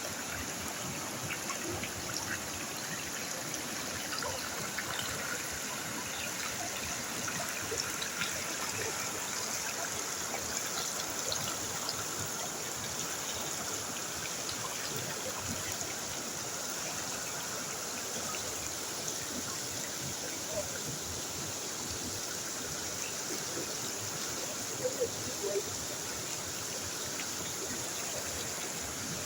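Steady flow of a small stream, with a trickling, unbroken water sound. A few brief louder splashes or pops come near the end.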